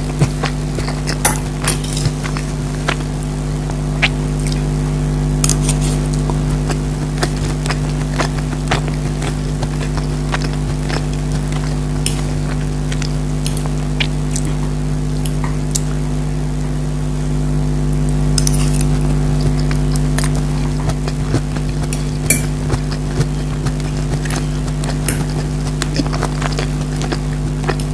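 Eating sounds: cutlery clinking on a plate and mouth noises come as short irregular clicks, over a steady low hum.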